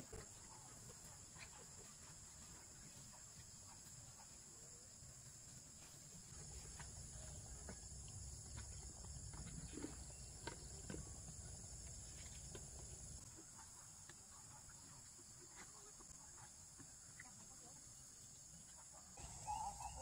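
Near silence: faint rural background with a steady high-pitched hum and scattered small knocks. A low rumble comes in about six seconds in and fades about seven seconds later.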